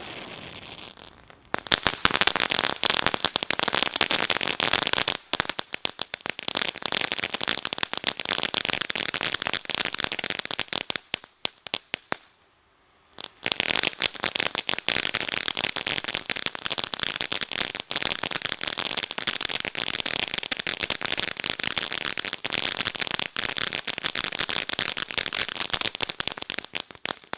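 Hog Wild Fireworks' Hip Hop firework fountain: a steady hiss from its gold spark jet for about the first second and a half, then dense, rapid crackling from its crackling stars. The crackling stops for about a second around halfway and then comes back just as dense.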